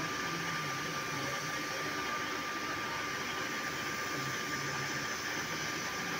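Steady drone of heavy machinery running, with a thin steady high whine in it.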